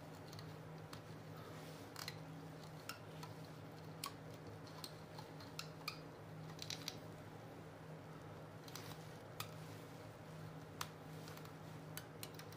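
Thread being pulled taut and hooked around the small nails of a string art board, giving faint irregular ticks and clicks over a steady low hum.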